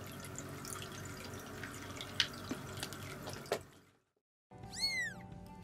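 Faint room noise with scattered light clicks and taps, fading out to silence about four seconds in. Then music begins, and two cat meows come about a second apart near the end, each rising and falling in pitch.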